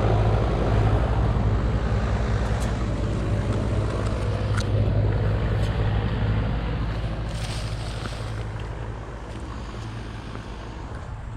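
Outdoor air-conditioning condensing unit running: a steady low compressor hum with fan noise, fading gradually toward the end, with a few faint clicks.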